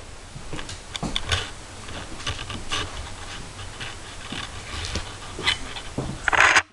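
Irregular scuffs and clicks of handling noise and footsteps as a handheld camera is carried through a small room, with a louder rustle near the end that cuts off suddenly.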